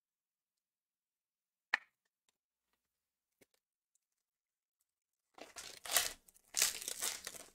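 Foil wrapper of a Topps trading-card pack being torn open and crinkled in the hands, in two bursts of tearing near the end. A single light click comes about two seconds in.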